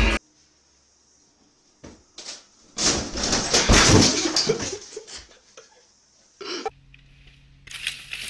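A man falling backwards onto a hard floor: a noisy burst of crashing and thuds lasting about two seconds, a few seconds in.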